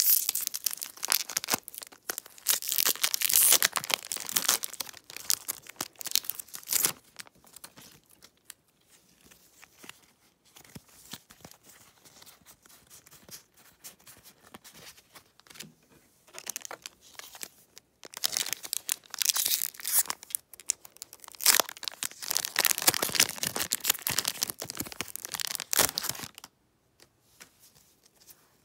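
Foil booster-pack wrapper crinkling and tearing as a pack of trading cards is opened, followed by the quieter rustle and slide of the cards being flipped through. A second long spell of loud crinkling comes about two-thirds of the way through, then it goes quiet.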